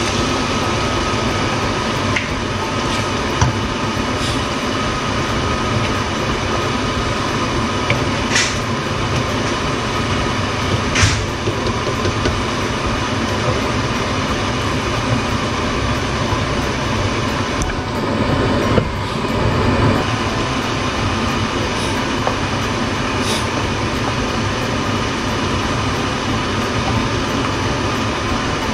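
Steady rushing noise throughout, with a few light sharp knocks, likely a wooden spoon against the steel pot, as cream is stirred into the sauce.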